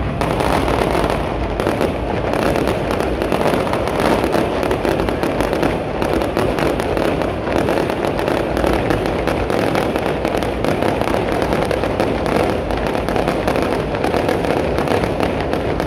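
Aerial fireworks display going off: a loud, continuous barrage of rapid bangs, pops and crackling bursts overlapping one another.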